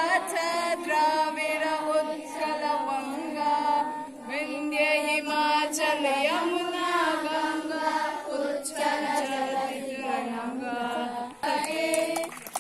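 A group of voices singing a song together in unison, in phrases of long held notes.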